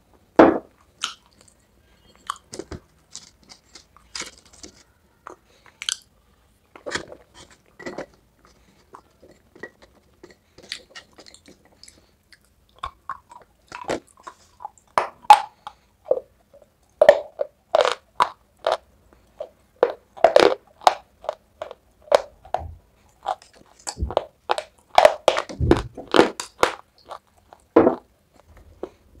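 Dry clay being bitten, crunched and chewed, with sharp brittle crunches. They come sparsely at first and then thick and fast through the second half.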